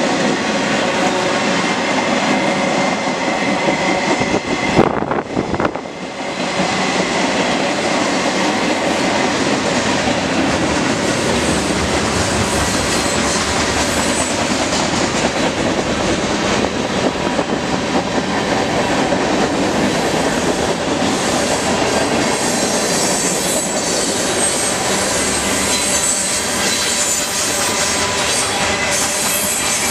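Freight cars of a long mixed freight train (flatcars, boxcars, covered hoppers) rolling past close by: a steady rumble and clatter of steel wheels on the rails. A thin high wheel squeal comes and goes as the cars take the curve.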